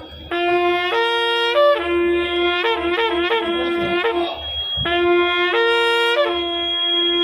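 Kombu, a long curved horn of a Kailaya vathiyam ensemble, blown in long loud blasts that jump back and forth between a low and a higher note. It breaks off for a moment a little after four seconds in, then starts again.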